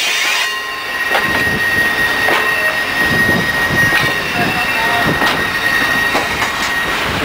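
Passenger railroad coaches rolling slowly past, their steel wheels squealing in a steady high tone over a low rumble, with a click from the wheels over the rail joints about once a second.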